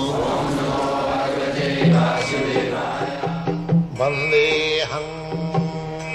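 Devotional intro music: a chanted mantra over a steady low drone, then plucked string notes from about three seconds in.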